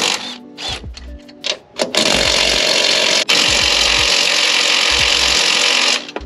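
Cordless impact wrench hammering off a 14 mm strut tower nut. It runs in one long burst of about four seconds, with a brief break partway through.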